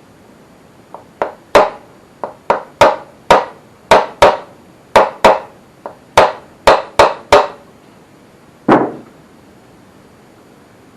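Hammer knocks in a quick, uneven series of sharp taps, about fifteen over six seconds, then one heavier blow near the end. The taps are driving the number two piston and conrod out of a Holden 173 red six-cylinder engine block.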